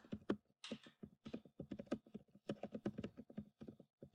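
Typing on a computer keyboard: a quick, uneven run of key clicks, several a second, as a sentence is typed.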